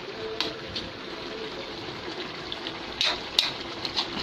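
Coconut-milk sauce with cassava leaves bubbling at a boil in a pot while a spoon stirs it, with a few sharp clicks, the loudest about three seconds in.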